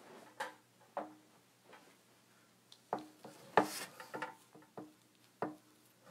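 Irregular knocks, clicks and rubbing of handling noise as the recording camera is picked up and moved, with the sharpest knock about halfway through.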